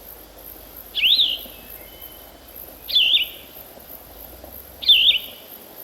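A songbird calling three times, about two seconds apart; each call is short and loud and wavers up and down in pitch. Under the calls runs a steady high-pitched insect chirring and a faint background hiss.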